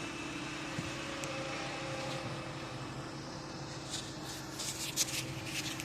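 Steady mechanical hum of running machinery, with a few short crackles from about four seconds in.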